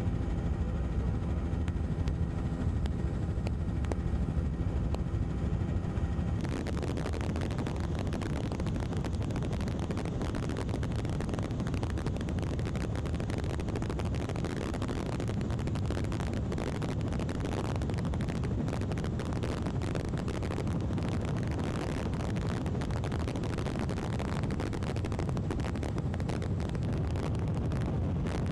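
Engine drone of the aircraft the aerial footage is filmed from: a steady hum with a clear pitch and overtones that changes suddenly about six seconds in to a rougher, rushing roar.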